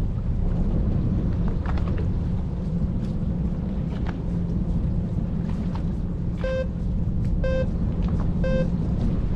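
Fishing boat's engine running with a steady low rumble. About two-thirds of the way in, three short beeps sound a second apart.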